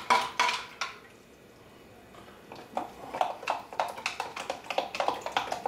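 A spoon stirring water in a plastic measuring cup, clicking and scraping against the sides in quick strokes to dissolve yeast and salt. The stirring pauses for about a second and a half, then resumes at about three to four clicks a second.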